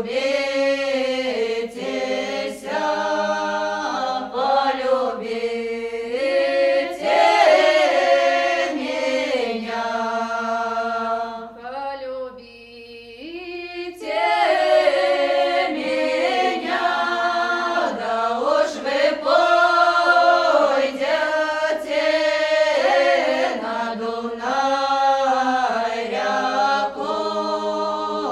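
Choir singing a Russian song in several voices, unaccompanied. It drops to a softer, thinner passage about twelve seconds in, then comes back to full voice about two seconds later.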